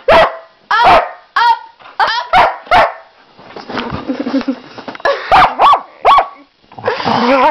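A dog making a run of short, loud, bark-like woofs and 'talking' calls that bend up and down in pitch, with a breathier, hoarse stretch in the middle and a longer drawn-out call near the end. The dog sounds like an old man with a breathing problem.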